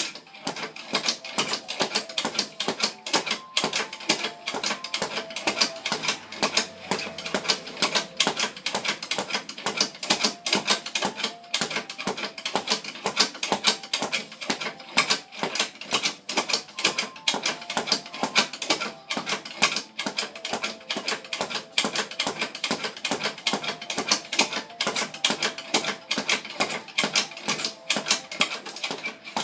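Everlast leather speed bag being punched continuously, a rapid, even rattle of strikes as the bag rebounds on its swivel.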